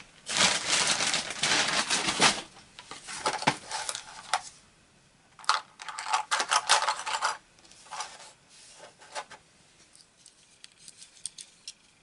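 Small hard tools being rummaged through and handled, rattling and clattering in four bursts, then a few light clicks near the end.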